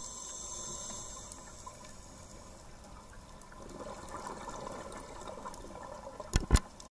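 Muffled underwater water noise heard through a dive camera's housing, a steady watery hiss. Two sharp knocks come close together near the end, then the sound cuts off.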